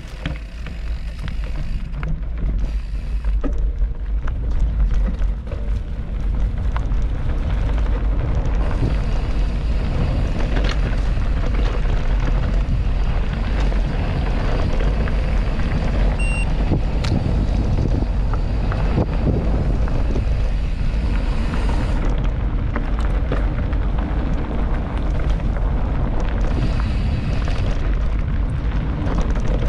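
Wind buffeting the microphone of a camera riding along on a mountain bike, a loud steady rumble, with the rattle and small knocks of the bike running over rough trail. It builds up over the first several seconds as the bike picks up speed.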